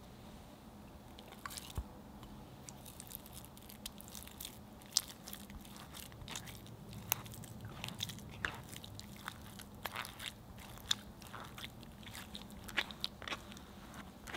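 Thick custard cream being pressed through a fine mesh sieve, making irregular sticky squishing and small scraping clicks.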